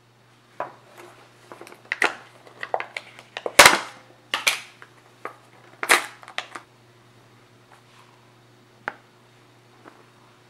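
A cocoa powder tin being opened by hand: a run of sharp clicks and short crackling noises for about six seconds, the loudest about three and a half seconds in, then quiet but for a single tick.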